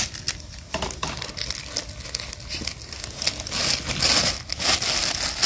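Thin plastic bags crinkling and rustling as hands open them and handle the food inside, with many small crackles. It gets louder and busier about three and a half seconds in.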